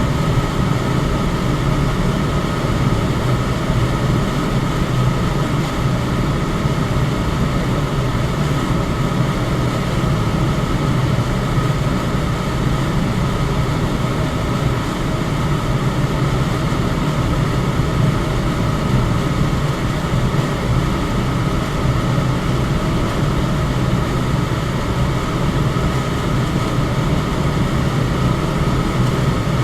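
Electric fan running steadily: an even rush of air over a low hum, with a faint steady high tone.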